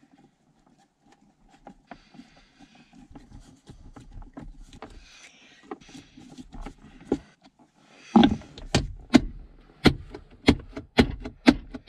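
Screwdriver work on a plastic armrest hinge, with rustling and small clicks, then from about eight seconds in a run of sharp plastic knocks, about two a second, as the armrest lid is pushed down repeatedly. The lid's latch will not catch, so it pops back up.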